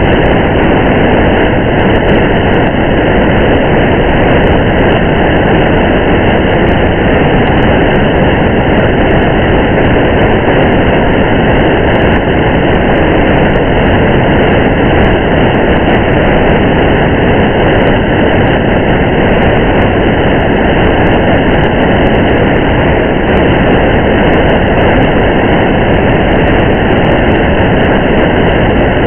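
Steady, muffled rain and road noise of a car driving in the rain, an even drone with no breaks or changes.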